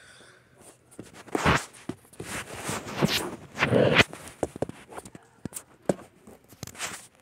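Phone handling noise: the microphone rubs and bumps against skin and clothing, with three loud scuffs and rustles, then a few sharp taps near the end.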